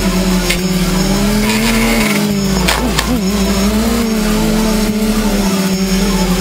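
Quadcopter's Suppo 2212/13 brushless motors and propellers whining steadily, heard from the onboard camera, the pitch wavering and briefly dipping and swooping about halfway through.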